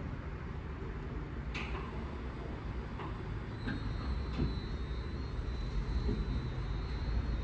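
WashTec SoftCare² Pro rollover car wash in its 40-bar contour high-pressure pass: high-pressure water jets spraying as the gantry works over the car, a steady rumbling hiss. There is a single click about a second and a half in, and a thin, steady high whine comes in about halfway.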